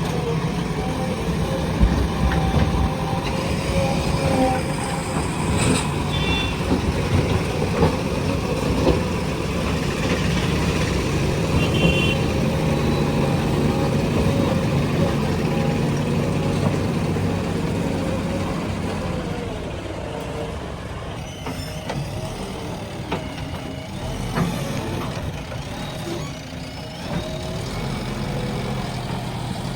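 JCB 3DX backhoe loader's diesel engine running steadily under working load, with a few sharp knocks. It eases off somewhat about two-thirds of the way through.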